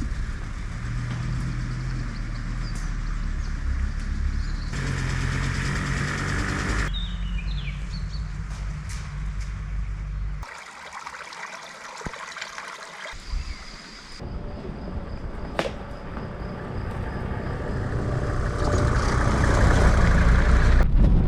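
Mercedes G 250GD Wolf's five-cylinder diesel running while the vehicle is driven, in several clips joined by abrupt cuts. Birds chirp briefly about seven seconds in, and there is a quieter stretch in the middle where the engine fades.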